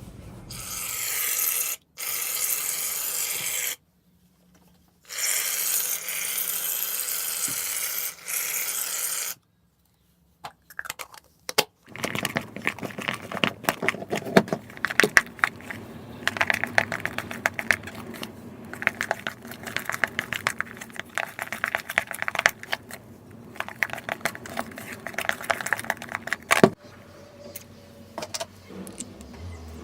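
Bursts of steady spray hiss for the first nine seconds or so, stopping and starting abruptly, typical of an aerosol can of shaving cream dispensing into a bowl. After a short pause, a long run of clicks, clatters and scrapes as the slime is stirred in the bowl.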